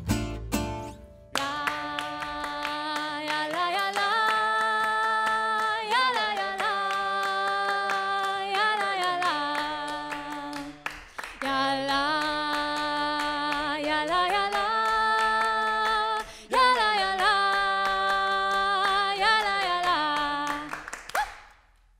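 Voices singing a cappella in held, harmonised notes over hand claps, after a brief tail of the band's guitars and double bass in the first second; the singing stops about a second before the end.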